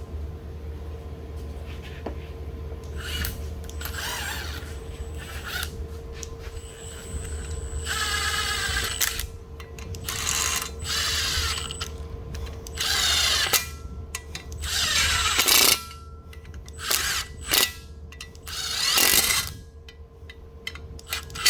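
Power drill running in repeated short bursts a second or two apart, spinning bolts in; some bursts wind down in pitch as they stop. A faint steady hum runs underneath.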